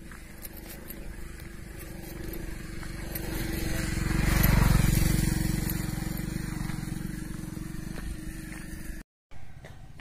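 A motor vehicle passing close by: its noise swells to a peak about halfway through and then fades away, over a steady low hum. The sound cuts out briefly near the end.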